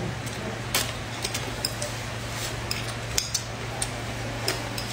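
Chopsticks clicking and scraping against a ceramic plate during a meal: light, irregular clicks, a couple of them sharper, over a steady low hum.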